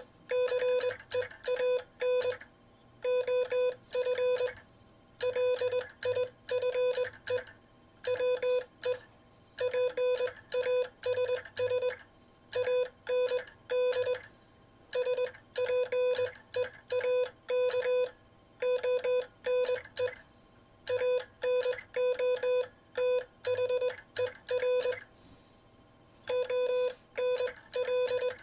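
Morse code sent by hand on a Vibroplex bug semi-automatic key, heard as a single steady mid-pitched sidetone beeping on and off in dots and dashes, with short pauses between letters and words. It is sent in the classic bug-sending style, with timing the sender says is a little off while he learns it.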